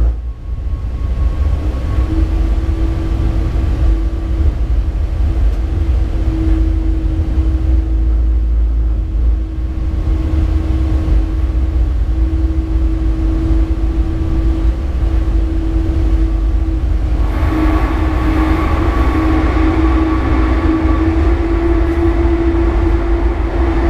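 Inside the cab of a Class 189 (Siemens ES64F4) electric locomotive running along the line: a steady low rumble with a constant electric hum. About two-thirds of the way through, a louder hiss of running noise joins in.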